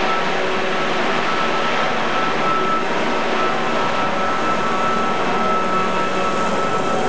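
Radio-controlled model helicopter flying and hovering low, its motor and rotors giving a steady whine over a rushing noise.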